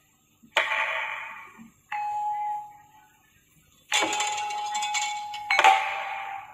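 Sundanese gamelan accompanying wayang golek: struck bronze instruments in four separate ringing strokes, one a single clear note ringing for about a second, the last two louder and brighter with a clash of metal.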